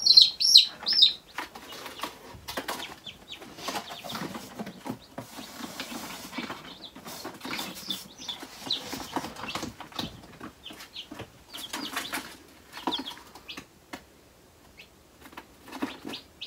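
Newly hatched chicks peeping loudly with a few high chirps in the first second. After that come rustling and knocking from handling, with occasional faint peeps, as a chick is set into a cardboard box and the next is lifted from the incubator.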